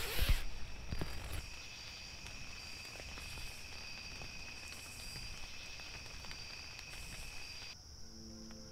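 Insects trilling steadily in the woods, with faint scattered ticks and a brief rustle at the start. Near the end the trilling cuts off and music comes in.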